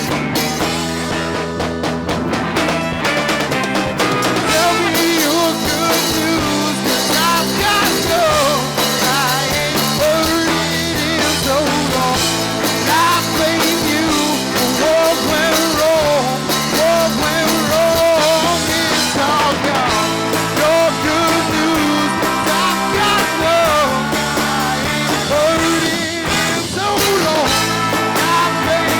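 Live rock band playing a full, loud instrumental passage: drums, bass and electric guitars, with a wavering lead melody line above them.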